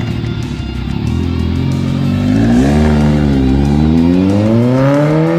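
Motorcycle engine accelerating hard through a gear: its pitch starts rising about two seconds in, dips briefly, then climbs steadily.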